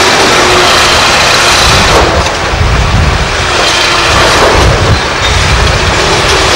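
Liebherr R964 demolition excavator working under load, its engine and hydraulics making a loud, steady noise. Masonry crumbles and rubble rumbles down from the bucket, heaviest in the middle stretch.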